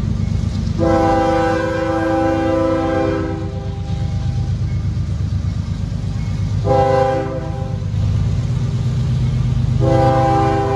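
Approaching freight locomotive's multi-note air horn sounding a long blast, a short one, then another long one, over a steady low rumble.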